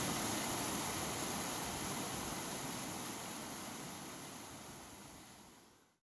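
Rushing white water of small rapids pouring over rock ledges, a steady wash of noise that fades out gradually to silence near the end.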